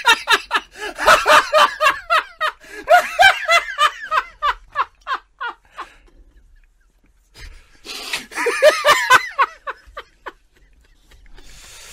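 Hearty laughter in rapid rhythmic bursts for about five seconds, dying away, then a second round of laughter a couple of seconds later.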